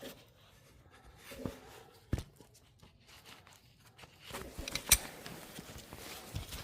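Hand tools being handled against the snowblower's oil drain: a few scattered light knocks and clicks, the sharpest about five seconds in, with faint rustling.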